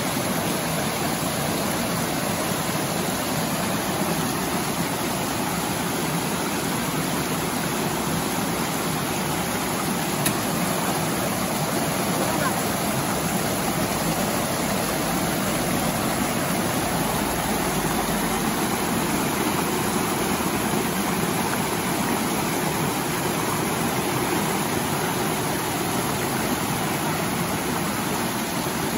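River water rushing steadily, with one brief knock about ten seconds in.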